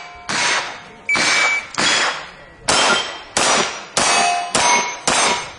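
Handgun shots striking steel target plates in quick succession, about eight in all, each hit ringing out briefly with a metallic clang.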